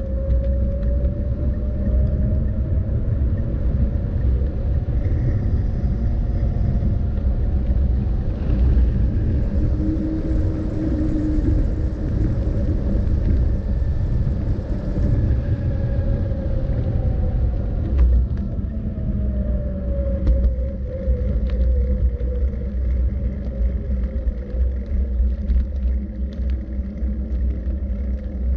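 Steady low rumble of wind buffeting and rolling road noise on a microphone moving along a cycle path, with a faint whine that glides up and down in pitch several times.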